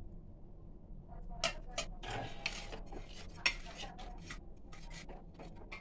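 Stainless steel plate and bowl clinking and knocking as they are handled and moved: a scatter of sharp clicks and short rattles, with one sharper knock about three and a half seconds in.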